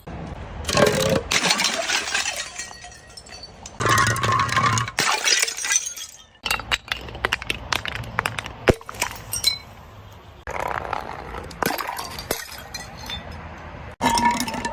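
Glass bottles being crushed and breaking, in several bursts of crunching and cracking, with shards clinking between them.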